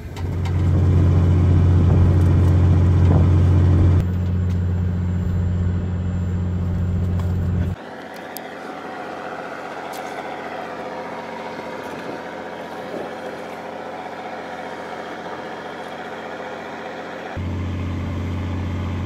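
Steady low hum of a fishing boat's machinery, loudest in the first few seconds. It cuts off about eight seconds in, leaving a softer hiss, and comes back near the end.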